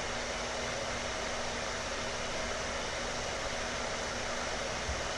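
Steady hiss with a faint low hum.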